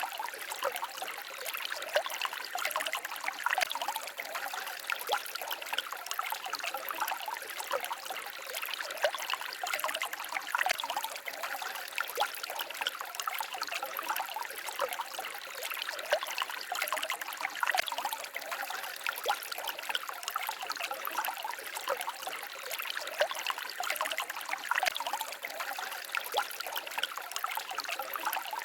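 Small forest stream babbling and trickling steadily over stones, a busy patter of small splashes with no deep rumble.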